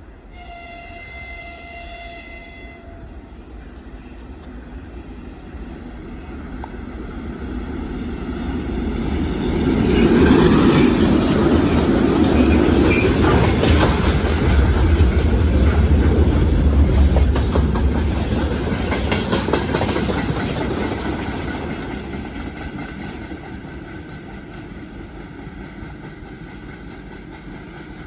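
A 2ES4K "Donchak" twin-section electric locomotive sounds its horn in one blast of about two and a half seconds as it approaches. It then hauls a freight train of tank cars past. The rumble builds, peaks with wheels clattering over the rail joints, and fades as the train draws away.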